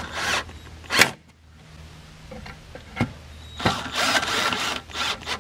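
Milwaukee M12 cordless drill/driver running in short bursts as it drives the screws of an outdoor outlet's weatherproof cover. There are sharp clicks about one second and three seconds in.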